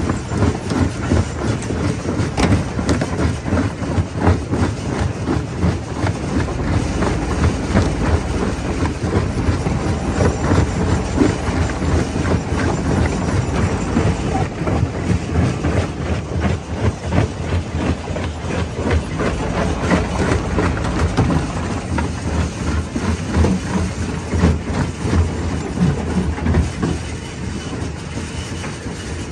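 Jaw crusher running and crushing rock: a steady heavy rumble with dense cracking and knocking of stone between the jaws, easing slightly near the end.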